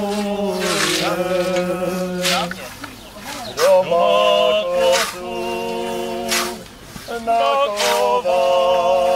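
Men's voices singing a song unaccompanied, with long held notes. Under the singing, scythe blades swish through grass about once every second and a half.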